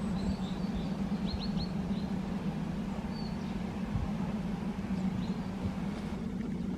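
Steady low hum with background noise, and a few faint bird chirps about a second and a half in and again around three seconds.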